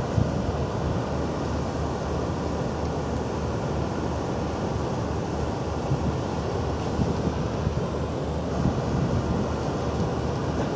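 Steady wind rushing over the microphone on the open deck of a cruise boat under way, with the boat's low running noise beneath it.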